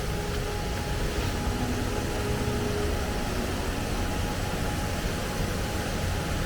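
Steady rushing of a fast-flowing stream and waterfall, an even unbroken noise.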